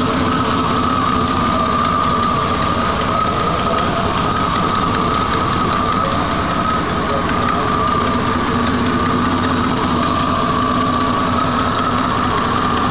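1993 Chevy 4.3 L V6 engine idling steadily, freshly installed, with what the owner calls a slight manifold leak.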